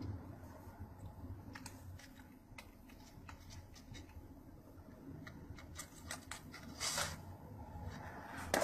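Faint scattered light clicks and a brief scrape about seven seconds in, as a cat's paw drags a pizza slice off a plate and across a computer keyboard, over a low steady hum.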